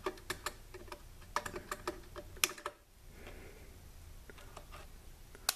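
Diagonal cutters working on diode leads inside a metal power-supply chassis: a run of small clicks and taps as the jaws are placed, with a sharp snap about two and a half seconds in and another near the end as leads are cut.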